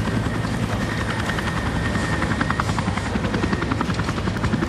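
Steady low mechanical drone with a fast, even pulsing, like an engine or rotor running without a break.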